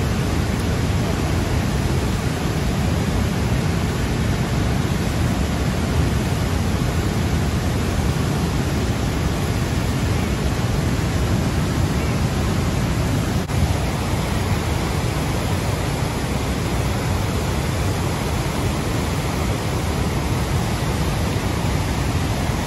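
Loud, steady rush of the Ohio River pouring through a dam and churning in the whitewater below it.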